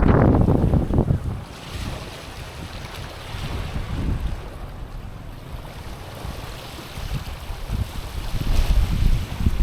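Small sea waves lapping and washing over a stony, pebbly shore, with wind rumbling on the microphone. Loud for about the first second, then a quieter wash, building again near the end.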